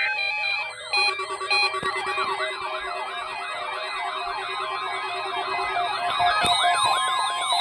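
Several electronic siren sounds layered over one another, fast rising-and-falling sweeps overlapping, with steady alarm tones held underneath. They come in about a second in after a brief dip.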